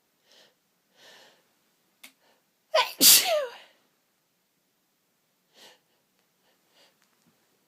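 A woman sneezes once, loudly, about three seconds in. A few short breathy inhales build up to it, and the voiced part of the sneeze falls in pitch.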